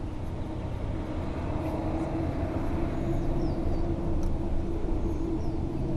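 An engine droning steadily, growing gradually louder, with a few short bird chirps.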